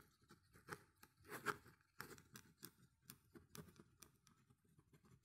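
Near silence with faint, irregular rustles and light clicks of paper pages being handled in a folder.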